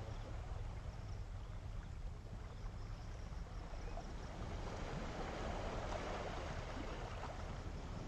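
Calm sea water washing on the shore over a steady low rumble, with a wave swelling up about five seconds in.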